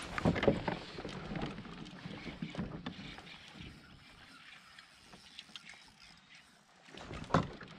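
Knocks, bumps and rustling of an angler moving about on a fishing kayak's deck, loudest in the first second and again near the end, with scattered light clicks in between.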